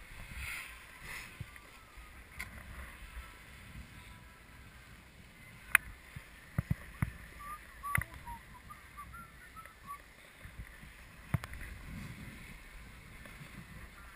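Snow scraping and hissing under a rider sliding downhill, with wind rushing over the microphone. A cluster of sharp knocks about six to eight seconds in and another near eleven seconds.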